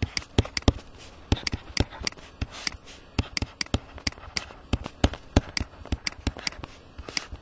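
Stylus tapping and clicking on a tablet screen during handwriting: a fast, irregular run of sharp ticks, several a second.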